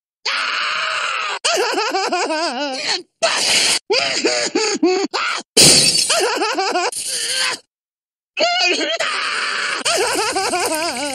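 Cartoon characters' wordless vocalisations: wavering screams, wails and laughter in short separate clips, cut apart by brief silences. A loud crash-and-shatter effect comes about five and a half seconds in.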